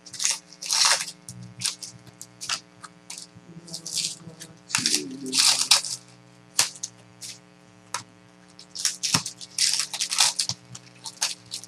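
Trading cards and their foil pack wrappers being handled: irregular crinkling and rustling as cards are slid and flipped through one after another.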